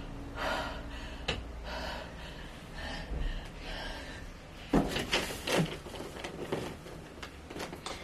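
A woman in labour breathing hard and gasping through a contraction, in short breathy puffs. A few sharp knocks about five seconds in.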